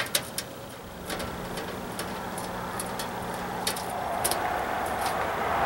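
Scattered light metallic clicks and taps as concrete screws and a hand tool are handled at the sheet-metal chimney flashing. A steady rushing noise builds up over the last couple of seconds.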